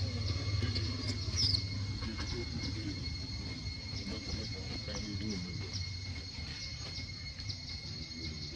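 Insects droning steadily on two high, unbroken pitches, with faint quick ticks above them. A brief high chirp comes about a second and a half in, and a low rumble fades out after about two seconds.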